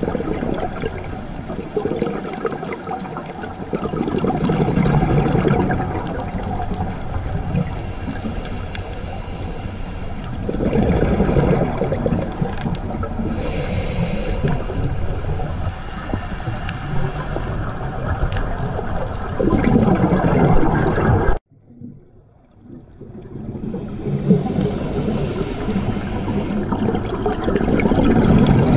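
Underwater sound of a scuba diver's regulator: the bubbles of each exhalation bubbling up in rough swells every several seconds, with a hiss of inhalation in the middle. About two thirds of the way in the sound cuts off abruptly and fades back up over a couple of seconds.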